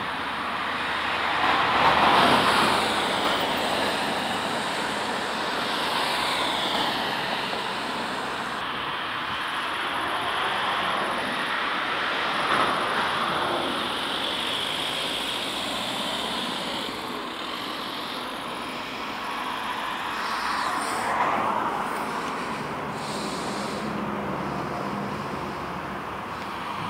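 Road traffic: cars passing one after another, each swelling and fading with tyre and engine noise over a steady traffic background, the loudest about two seconds in.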